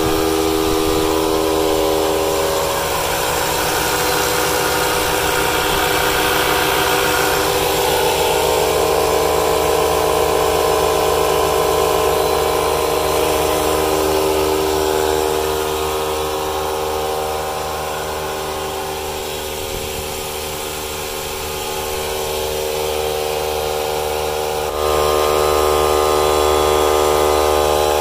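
Several battery-powered tire inflators and a cordless air compressor running at once, a steady drone of overlapping pump motors at slightly different pitches as they fill flat truck tires. Near the end the sound steps up suddenly in loudness.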